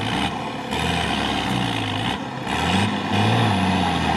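Off-road truck's engine working hard under load, revs rising and falling as it climbs out of a muddy ditch. The revs are highest about three seconds in.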